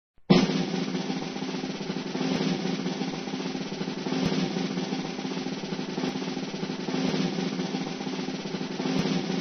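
A sustained drum roll, starting about a third of a second in and going on steadily and evenly.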